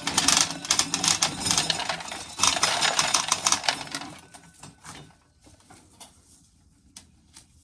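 Dried corn rattling and clicking as it is shelled, a dense clatter of kernels for about four seconds that thins to scattered clicks.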